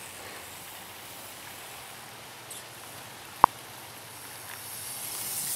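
Faint steady outdoor noise with a single sharp click about three and a half seconds in, and a rushing noise building near the end.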